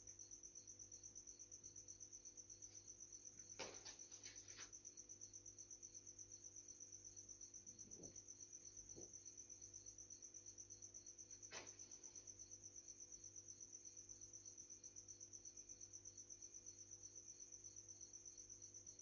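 Faint crickets chirping steadily in a fast, even rhythm, with a second, slower chirp just below it. A few soft clicks come about four seconds in and once more past the middle.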